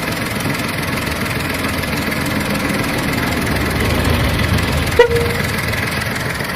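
Volkswagen Polo engine idling steadily. About five seconds in, one sharp click is followed by a short beep-like tone.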